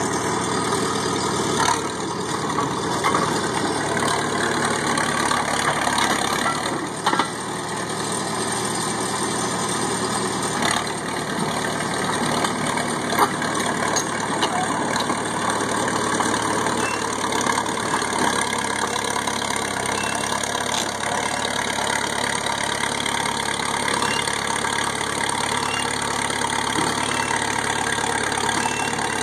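Crawler loader's engine running steadily as the machine tracks forward and pushes a crushed pickup, with a few short sharp metal clanks, the loudest about halfway through.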